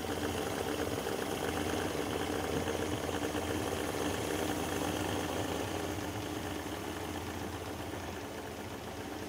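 Freshly rebuilt Tohatsu 50 two-stroke three-cylinder outboard running steadily at a fast idle of about 1500 rpm in neutral.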